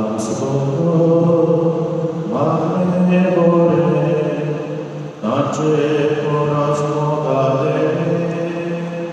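A slow church hymn sung in long held notes, new phrases beginning about two and five seconds in. It is the offertory hymn, sung while the altar is prepared at Mass.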